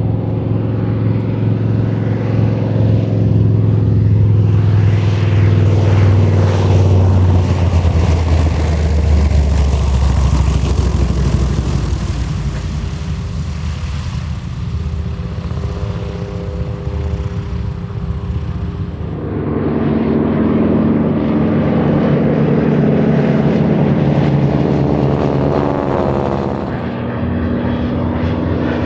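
TBM Avenger's Wright R-2600 radial engine on a low pass: the propeller-engine drone swells to its loudest about ten seconds in, its pitch dropping as it goes past. It then eases and builds again about nineteen seconds in as the aircraft comes round.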